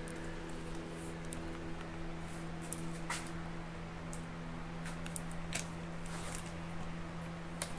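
Quiet garage room tone: a steady low hum with a few faint clicks and light handling knocks.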